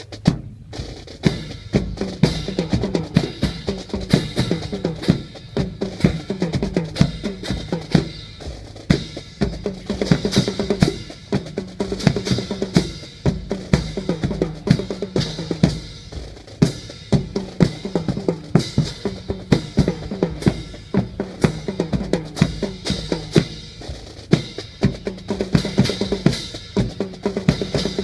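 Drum-led music: many drum strikes in a fast, steady rhythm over held low pitched notes, going without a break.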